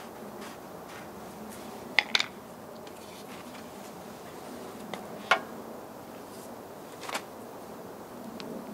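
A few short, sharp clicks and knocks over a low steady background as a plastic oil jug and its flexible hose spout are handled and fitted into a Honda Acty van's oil filler: a close pair about two seconds in, one about halfway, a lighter one near the end.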